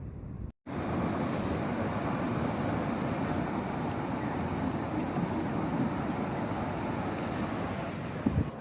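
Steady rumble of road traffic. The sound drops out for a moment about half a second in, and a short knock comes near the end.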